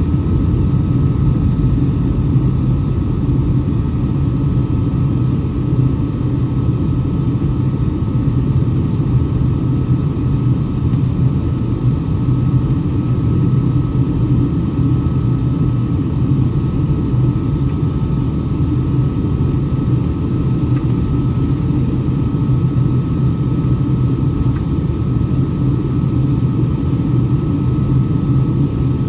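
Cabin noise inside a Boeing 757-200 airliner in flight: a steady low drone of its Pratt & Whitney PW2037 turbofan engines and rushing air, with a thin steady whine above it.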